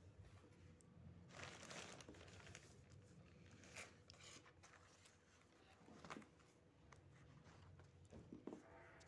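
Faint scratching of a graphite pencil drawing on a sheet of paper, in a few short strokes with pauses between.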